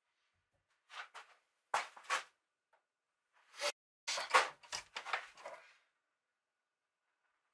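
Short metallic clunks and rattles from a steel bench vise being tightened on a steel rod, its sliding handle clanking as it is turned, and a die stock being handled on the rod. A few separate knocks come first, then a quicker run of them about four seconds in.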